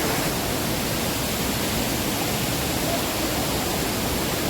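Waterfall: a steady, unbroken rush of falling water close by.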